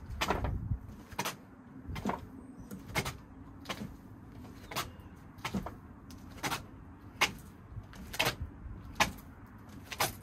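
Repeated sharp taps and knocks from sabre lunge-thrust practice at a target, roughly one a second and sometimes in quick pairs. A low rumble in the first two seconds.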